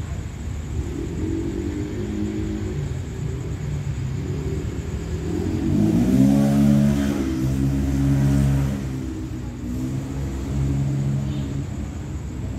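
A vehicle's engine running and revving up, its pitch rising about halfway through, then holding steady for a few seconds before easing off and picking up again briefly near the end.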